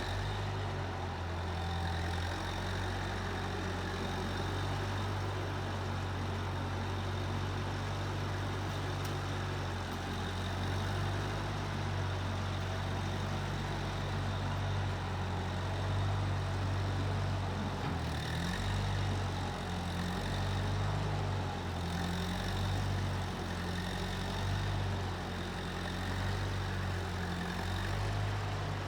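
Case 1530 Uni-Loader skid steer engine running, a steady low hum that dips briefly about two-thirds of the way through and runs less evenly after that.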